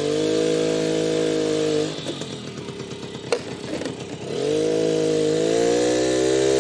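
Mobility scooter's motor running with a steady hum. It fades about two seconds in, there is a single sharp click, then it comes back and rises in pitch as the scooter speeds up.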